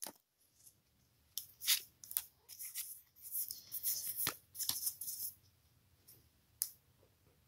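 Pokémon trading cards being slid and flipped through by hand: a run of soft, quick card flicks and rustles, with one last flick near the end.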